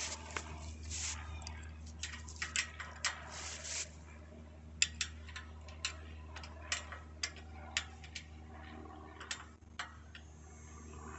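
Sharp, irregular metallic clicks from a wrench and tools working on the bicycle's rear axle nuts as the back wheel is taken off. A steady low hum runs underneath.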